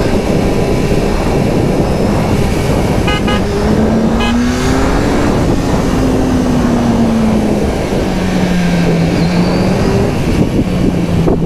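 Kawasaki Z1000SX's inline-four engine under way with heavy wind rush, its note climbing a few seconds in and easing back down near the end. Two short horn beeps sound about three and four seconds in.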